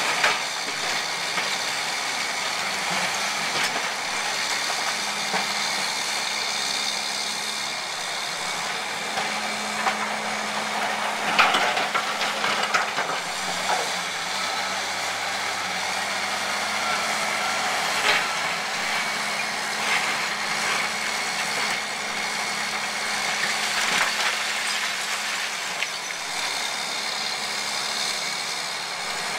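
An Aveling-Barford machine's engine running steadily, with a few sharp clanks over it, the loudest about eleven seconds in.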